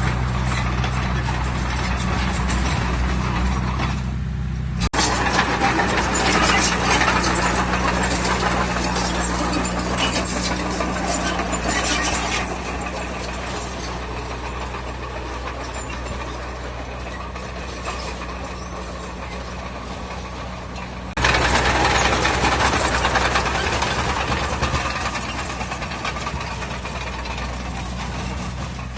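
Heavy diesel earthmoving machinery running steadily. Two spells of louder, gritty noise start abruptly: one about five seconds in that lasts several seconds, and another about twenty-one seconds in.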